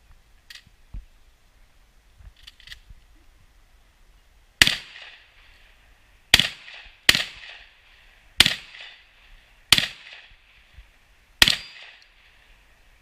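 Six shotgun shots at an uneven pace, about one to two seconds apart, each trailing off briefly. A few faint clicks come before the first shot.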